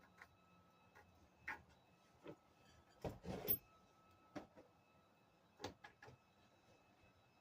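Scattered small clicks and light knocks of bolts and washers being handled while a scooter deck is fitted to its frame, with a louder half-second clatter about three seconds in.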